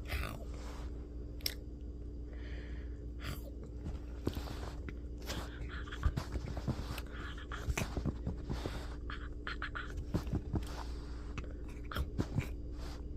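A chihuahua chewing, with irregular crunches and sharp clicks over a steady low hum.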